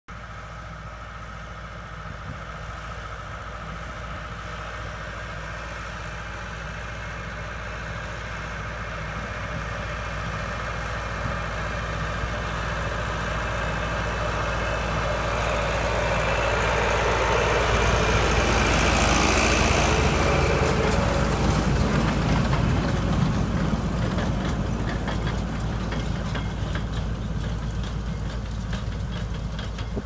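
Massey Ferguson 390 tractor's four-cylinder diesel engine running steadily as it pulls a round baler through a hay windrow, the baler rattling as it works. It grows louder as it approaches, is loudest as it passes about two-thirds of the way through, then fades as it moves away.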